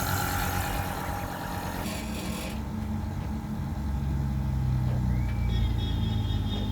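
Steady low mechanical hum from a split air conditioner's outdoor unit, growing a little louder a few seconds in. The unit is running while its condenser fan stays still.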